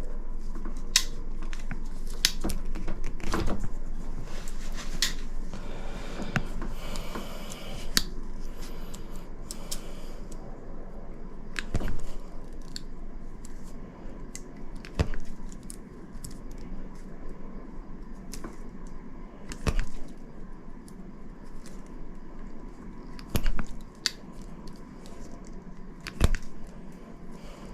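Hand tools at work: sharp clicks and snips at irregular intervals, every couple of seconds, with a stretch of scraping and rustling from about six to ten seconds in.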